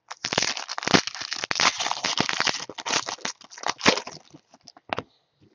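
Foil wrapper of a Panini Prizm basketball card pack crinkling and crackling as it is torn open by hand. The crackling is dense for about four seconds, then thins to a few scattered crackles.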